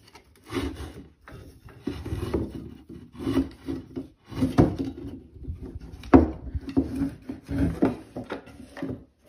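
A beaver shoving a long stick against a wooden staircase and trim, dam-building behaviour. The wood scrapes and rubs in irregular bursts, with a sharp knock about six seconds in.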